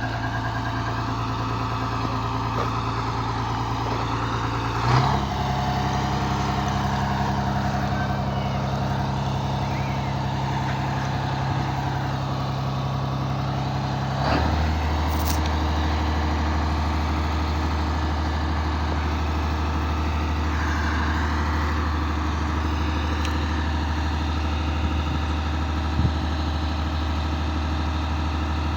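Heavy engine running steadily, its speed stepping abruptly to a new steady level twice, about 5 seconds in and again about 14 seconds in, each change with a short clunk.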